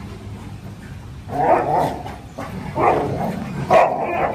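A group of dogs play-fighting, barking in three loud bouts after a quieter first second; this is rough play, not a real fight.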